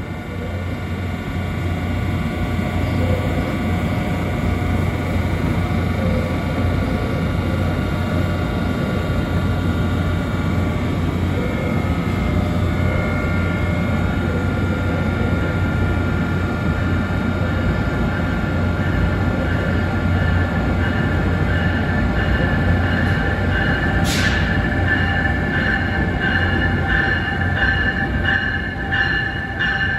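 Amtrak Siemens ACS-64 electric locomotives and passenger cars moving through an underground station: a steady low rumble with several held high whining tones. About 24 s in there is a brief sharp hiss, and after it a stronger, pulsing high whine as locomotive 662 draws in on the next track.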